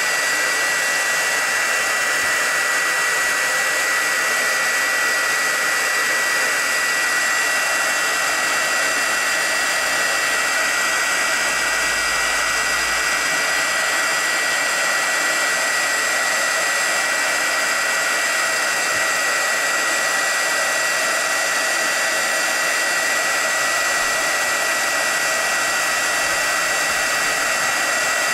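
Craft heat gun blowing steadily, a fan rush with a steady high whine, as it heats embossing powder on a stamped card to melt it.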